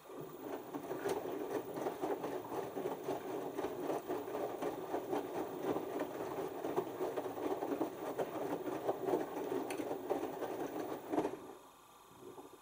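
LG 6 Motion direct-drive front-loading washing machine turning its drum through a rinse, tumbling wet laundry in the rinse water with a dense, busy whir. It starts straight away and stops abruptly about eleven seconds in, as the drum pauses.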